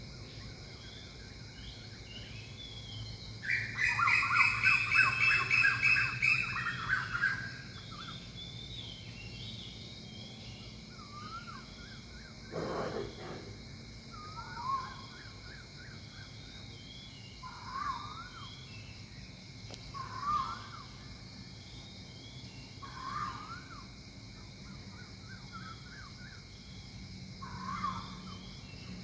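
Wild birds calling. A few seconds in there is a loud, harsh chattering call lasting about four seconds. After that a short whistled phrase repeats every two to three seconds, over a steady high-pitched background hum.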